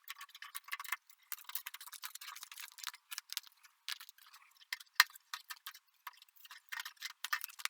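A paper template being peeled off a car body panel, crackling and crinkling in quick irregular ticks, with one sharper click about five seconds in.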